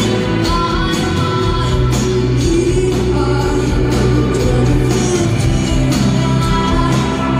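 Rock band playing live, with electric guitars, bass, drums and a singing voice, heard through a phone in the audience of a concert hall.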